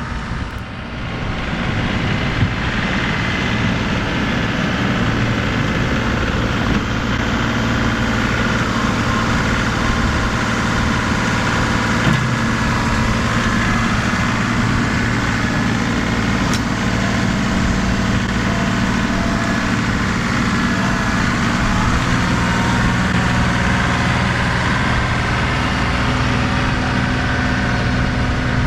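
Tractor's diesel engine running steadily under load while plowing snow with the front loader bucket, which is held down to break through packed snow and ice. It picks up over the first two seconds, then holds steady.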